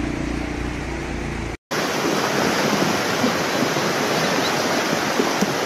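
Floodwater rushing through a street: a loud, steady rush of water. It begins right after a brief dropout about a second and a half in. Before that there is a low steady hum under noise.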